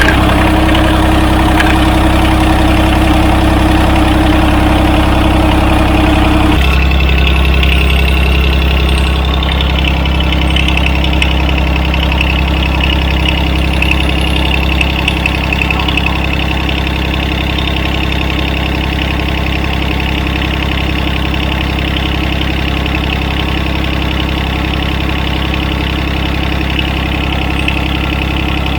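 John Deere tractor's three-cylinder Yanmar diesel engine running steadily just after starting, its note changing about six and a half seconds in, then settling to an even idle.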